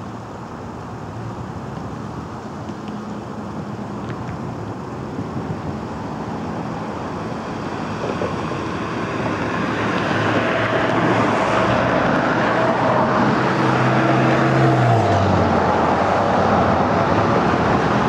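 Motor-vehicle noise getting steadily louder as an engine approaches, its low hum dropping in pitch about three-quarters of the way through as it passes, over a wash of traffic noise.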